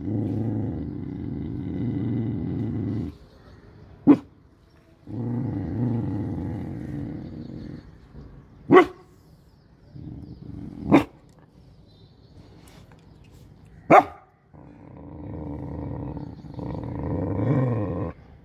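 A dog growling in long low rumbles of two to three seconds, broken four times by a single sharp bark, warning off monkeys nearby.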